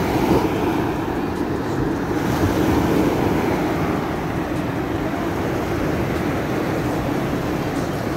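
Ocean surf breaking and washing up a sandy beach: a steady rush of waves, with wind buffeting the microphone.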